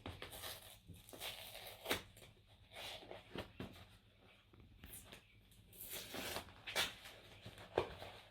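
A postal parcel being opened by hand: irregular rustling and tearing of the packaging, with a few sharp clicks.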